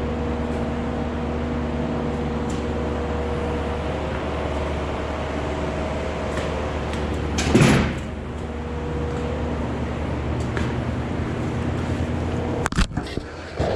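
A steady mechanical hum with a few even low tones, broken by one short loud clatter about halfway through.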